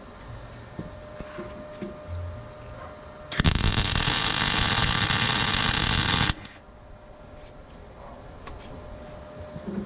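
Electric arc welding a steel plate onto an excavator chassis: a loud, even crackling run of about three seconds that starts and stops abruptly, a little over three seconds in. Faint knocks and a steady hum before and after.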